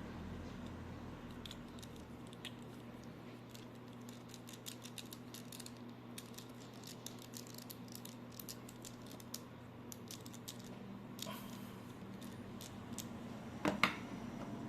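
Many faint, small clicks and taps from handling an action figure and its plastic packaging, with one louder knock near the end, over a steady low hum.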